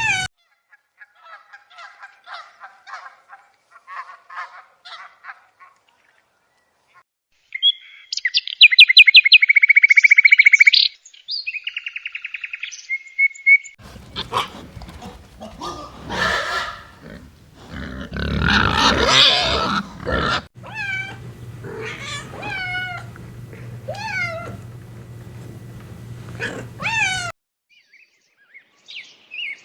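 A run of separate animal call clips: faint short chirps, then a loud fast trill, then a stretch of cries and short falling calls over a steady low hum, with one loud rough cry in the middle.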